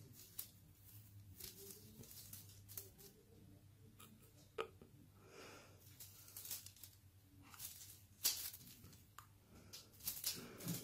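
Quiet room with a low steady hum and scattered faint rustles and light taps, a few sharper clicks among them.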